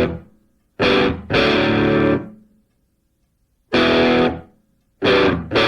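Music: distorted electric guitar chords played in stop-start fashion, each held half a second to a second and cut off sharply, with silent gaps between them.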